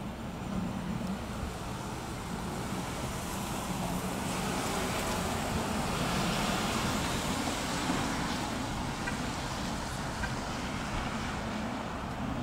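Railway station ambience: a steady low rumble of distant trains and road traffic with no single sharp event. It swells a little about halfway through, then eases slightly.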